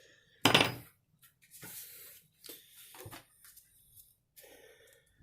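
Handling noises while the bit in a cordless drill's chuck is changed. There is a loud, short rasp about half a second in, then softer clicks and rustles.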